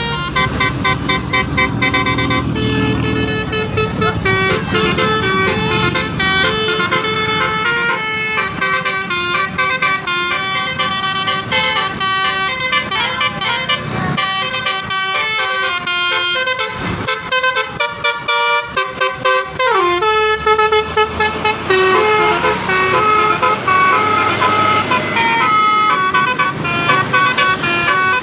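A Basuri multi-tone 'telolet' bus horn playing a quick melody of changing notes, with a low engine rumble under the first few seconds. About seventeen seconds in the horn pauses briefly and comes back with a falling slide, then carries on with more notes.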